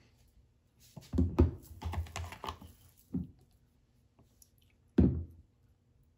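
Clicks and knocks of a milk frother jug and a milk carton being handled on a counter: a cluster of small knocks between about one and three seconds in, then one sharp knock about five seconds in.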